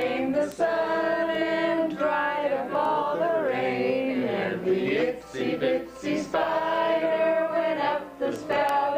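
Several voices singing together, holding long notes with short breaks between phrases.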